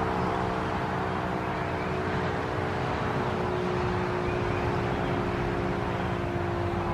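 Sentry 3V8-H electromechanical fire siren sounding during its test, holding a steady tone.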